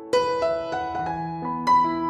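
Background piano music: single notes and chords struck in a slow melody, with a louder chord just after the start and another near the end.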